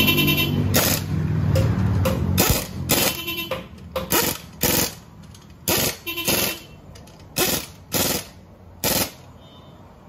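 Pneumatic impact wrench on a car's wheel lug nuts. It runs continuously for about two and a half seconds, then fires a string of about a dozen short bursts.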